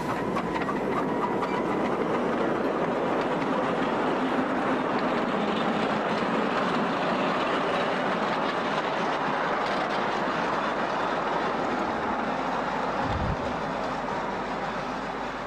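A 10¼ in gauge miniature steam locomotive hauling passenger carriages past, with the wheels clattering over the track. The sound fades a little near the end as the train moves away, and there is a short low thump near the end.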